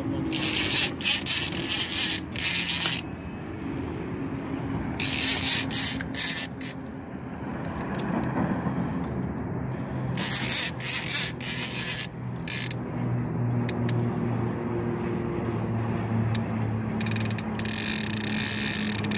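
A sturgeon rod's reel ratcheting in spurts of a second or two as line is pulled off. It becomes a steady buzz near the end, when the rod is bent with a fish on. A steady low motor hum runs underneath.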